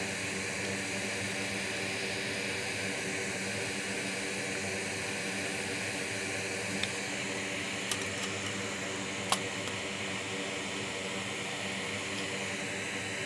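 Steady hum of a small electric fan, with a few faint clicks about eight and nine seconds in.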